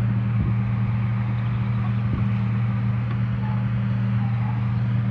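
An engine running at a steady speed: a constant low hum that does not rise or fall.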